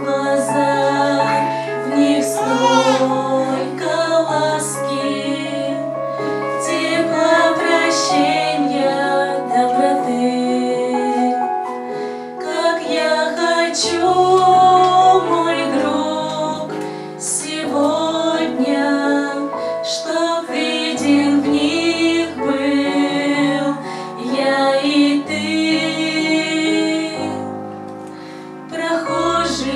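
Girls' voices singing a Russian Christian hymn, with a held instrumental accompaniment beneath them.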